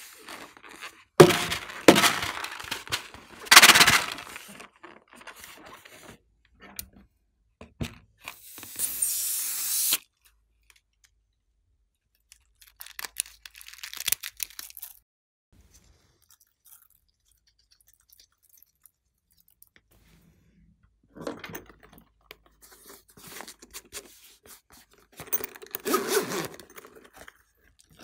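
Close handling sounds of a rubber novelty balloon: loud crunching and rubbing in the first few seconds, then a steady hiss of about a second and a half. Later come faint snips as scissors cut into the balloon, and near the end a burst of rustling as a zippered fabric case is opened.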